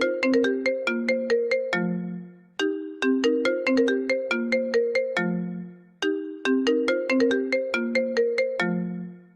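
iPhone ringtone playing: a short melody of notes with sharp starts that die away, ending each time on a lower held note and looping about every three and a half seconds.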